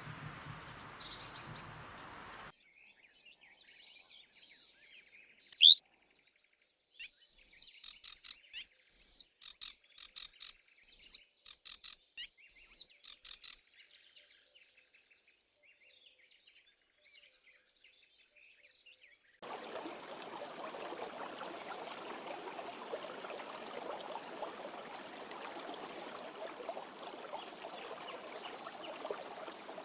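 Songbirds calling: a sharp loud chirp about five seconds in, then a run of short repeated whistled notes and quick trills until about halfway through. About two-thirds of the way in, the steady rushing of a stream starts and runs on.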